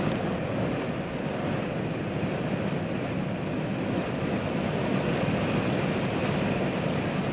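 Steady light rain falling, an even continuous hiss.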